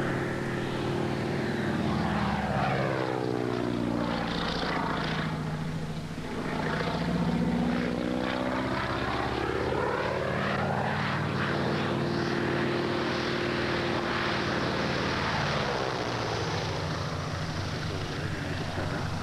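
Propeller biplane's piston engine droning overhead, its pitch sliding down and back up several times as it passes and circles.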